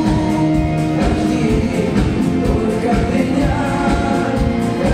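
Live pop-rock music from a concert hall's sound system: a man singing into a handheld microphone over band backing, recorded from among the audience.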